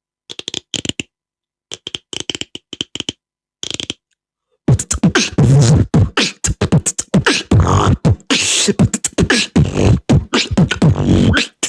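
Four short groups of rapid, sharp clicks separated by pauses. Then, from about five seconds in, a person beatboxing a dense pattern of deep bass kicks and crisp snare and hi-hat sounds.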